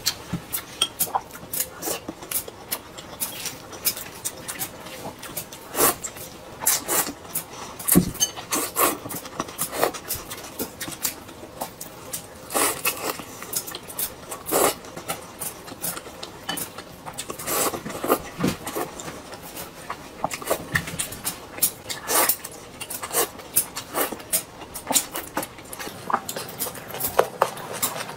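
Close-up eating sounds: chopsticks clicking against a bowl while noodles are slurped and chewed. They come as many short, irregular clicks and smacks.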